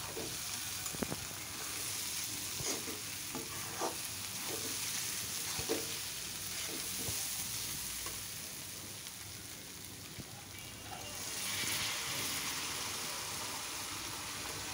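Masoor dal frying in oil in a karahi, a steady sizzle, while a spatula stirs and scrapes it with scattered clicks against the pan. Near the end water is poured in and the hiss grows louder.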